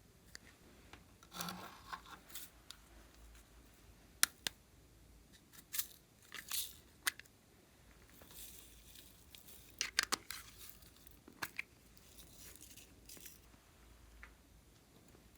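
Glossy slime being handled and mixed with makeup and clay: scattered sticky crackles, clicks and short tearing sounds at an irregular pace.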